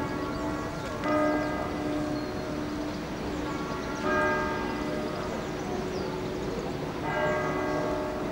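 Church bell tolling slowly: three strokes about three seconds apart, each ringing on and fading before the next.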